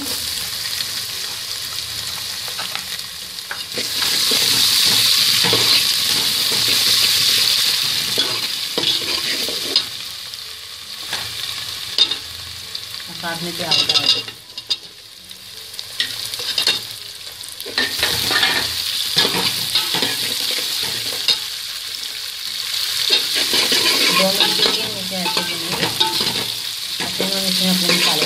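Garlic, ginger and whole spices sizzling in hot oil in a steel pot while a metal ladle stirs and scrapes through them. About halfway through, sliced onions go into the oil: the sizzle drops off briefly, then builds up again.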